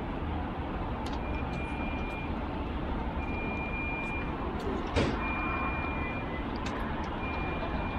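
Steady outdoor rumble of wind and distant city traffic. A high electronic beep repeats about every two seconds, each beep lasting about a second, and there is a single sharp knock about five seconds in.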